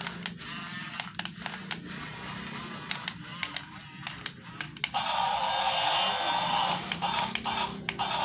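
Background music, with sharp clicks throughout and a louder stretch of harsh, grinding noise from about five seconds in until near the end.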